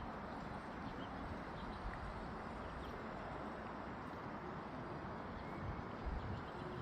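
Steady harbour ambience: an even hiss with faint, scattered high chirps and a few low bumps.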